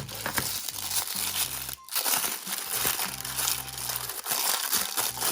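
Plastic packaging crinkling and crumpling as it is handled and torn open to unwrap a fashion doll's shoes, with a brief pause about two seconds in.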